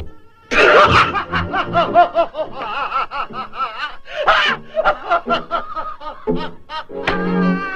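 Cartoon cat's laughter: a long run of rapid, wavering snickering cackles that starts about half a second in. It gives way to orchestral cartoon music near the end.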